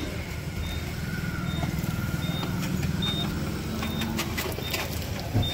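A vehicle engine running steadily, with short high beeps repeating about every three-quarters of a second.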